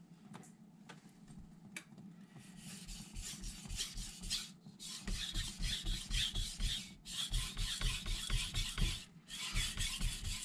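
Carbon steel knife blade stroked back and forth across a wet 800-grit vitrified Miyagoshi whetstone, a rhythmic scraping rasp with each pass. The strokes start about two and a half seconds in and come in runs separated by short pauses.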